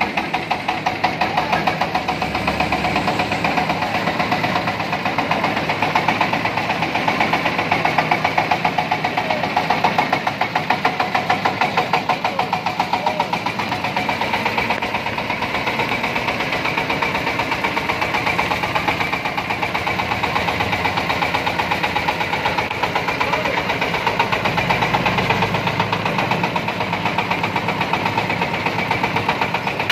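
24 hp diesel drive engine of a mobile rice mill running steadily, with a rapid, even beat.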